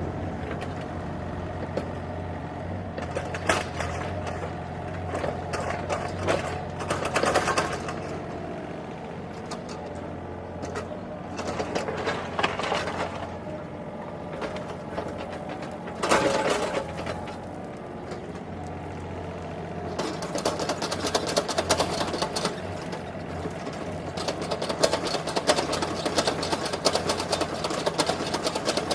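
Sany mini excavator's diesel engine running steadily with a fast clatter, broken by bursts of scraping and clanking from the digging. The clatter grows denser in the last third.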